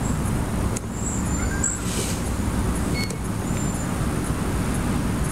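Steady low rumbling background noise, with a few brief high chirps about one to four seconds in.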